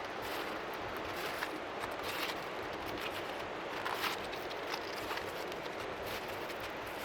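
Steady hiss of strong wind at the seashore, with faint waves lapping underneath, forming an even white-noise bed. Brief soft crackles come now and then.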